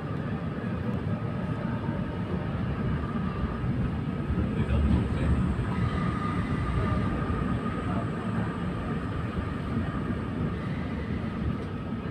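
A Prague tram running, heard from inside the car: a steady rumble of wheels on the rails, with a steady high whine over it.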